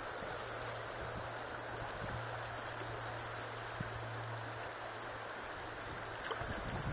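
Shallow river flowing: a steady, even rush of water, with a low steady hum underneath that stops about six seconds in.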